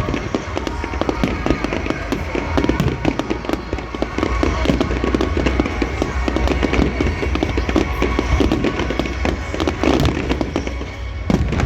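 Fireworks display: a dense, continuous string of bangs and crackling shells, with music playing under it.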